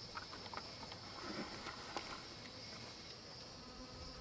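A few faint clicks and rustles of handling in the first two seconds, the sharpest about two seconds in, over a steady high drone of insects.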